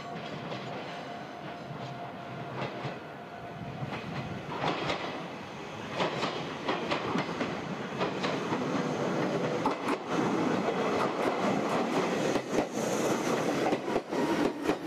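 Meitetsu Mikawa Line electric train running on the rails, wheels clicking over the rail joints, growing steadily louder as it comes in.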